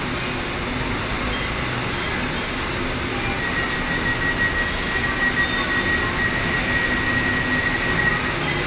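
LRT Line 1 fourth-generation train at the platform: a steady high door-closing warning tone starts about three seconds in and holds for nearly five seconds while the doors shut. Under it runs the steady hum of the standing train and station.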